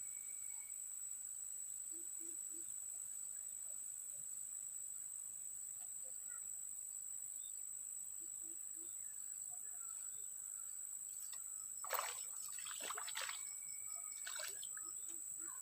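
Insects, likely crickets, chirring steadily at a high pitch along a weedy creek bank. About twelve seconds in, a few short splashing, rustling noises as the rod is lifted and a tilapia is hooked.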